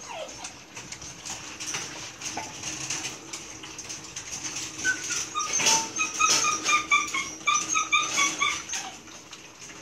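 Belgian Malinois puppies whimpering in a quick run of short, high squeaks from about five seconds in, over light clicking and tapping.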